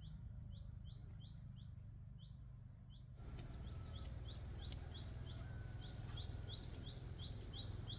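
A bird repeating a short, high, rising chirp about two or three times a second, steadily, over a low rumble of background noise that gets louder about three seconds in.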